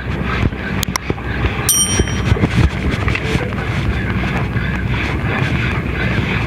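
Wind buffeting the microphone steadily, with a few sharp clicks about a second in and a short bright bell-like ding just under two seconds in, the chime of a subscribe-button animation.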